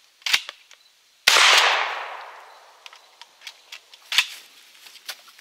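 A single blast from a Kel-Tec KS7 pump-action shotgun about a second in, ringing out and dying away over about a second. Shorter sharp clicks from working the gun come just before the shot and again near the end.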